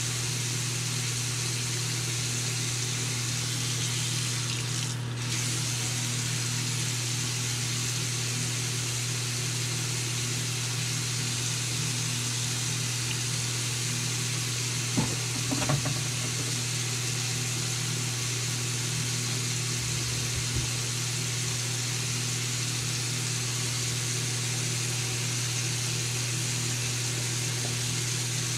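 Bathroom sink faucet running steadily into the basin and down the drain, with a steady low hum underneath. A few brief knocks come about halfway through.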